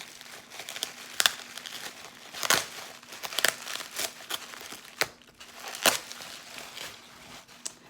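Bubble wrap packing being pulled out and handled, crinkling, with several sharp crackles.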